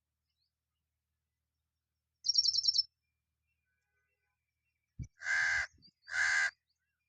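A crow's calls: a quick burst of high rapid chirping notes, then after a pause two harsh caws in close succession near the end, preceded by a brief click.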